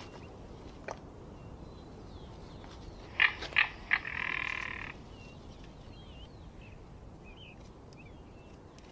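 Crested caracara calling with its head thrown back: three sharp harsh notes about three seconds in, then a rapid rattle lasting about a second. Faint high chirps over a steady outdoor hiss.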